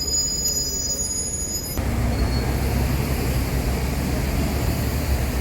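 Running noise of a moving vehicle: for about the first two seconds a steady high-pitched whine over a low rumble, then an abrupt change to a louder, noisier rumble.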